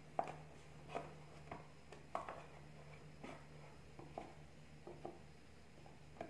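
Small carton of all-purpose cream being handled and torn open by hand: a scattered series of faint short clicks and crinkles over a low steady hum.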